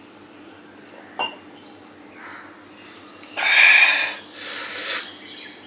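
A man breathing out hard twice through his mouth, two loud breathy rushes about half a second apart, the first the louder. A faint click comes about a second before them.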